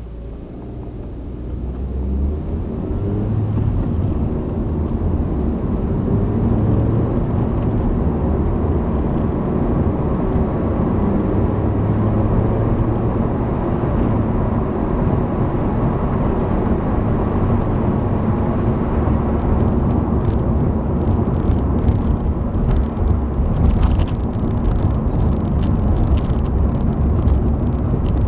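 Honda Civic sedan's engine and road noise heard from inside the cabin as the car gets under way. The sound rises over the first few seconds, then holds steady, with faint crackling in the last several seconds.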